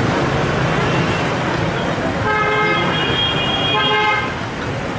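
A vehicle horn honking twice in quick succession, about two seconds in and again a second later, over a steady din of street traffic.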